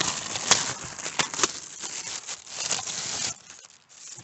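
Clear plastic bag crinkling and rustling as it is pulled off a new marine speaker, a dense run of crackles that stops a little over three seconds in.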